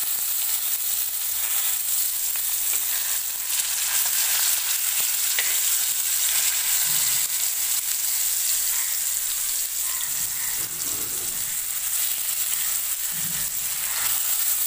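Marinated fish pieces sizzling steadily as they shallow-fry in oil on an iron tawa, with a slotted steel spoon scraping and turning them over now and then.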